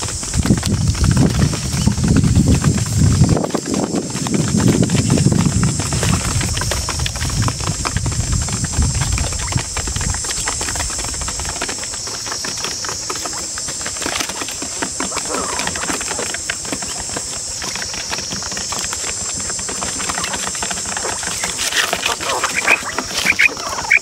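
Quail moving about a cardboard trap, their steps and pecks making many small clicks and scratches, with a few short rising chirps near the end. A steady high buzz runs underneath, and a low rumble fills the first ten seconds or so.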